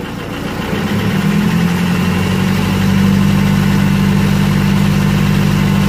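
Mercedes CDI common-rail diesel engine running, its revs rising from idle about a second in and then holding steady at a higher speed. This is during an injector correction check, which points to leaking injectors on cylinders one and four.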